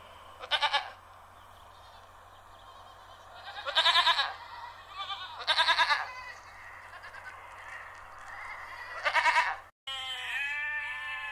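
Sheep bleating: four short, quavering bleats spaced a few seconds apart, then a longer bleat that starts after a brief cut near the end.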